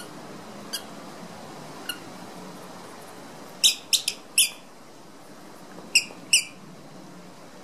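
Dog's squeaky ball squeaking as the dog bites down on it: short, sharp high squeaks in irregular groups, the loudest a quick run of four about halfway through and two more near the end.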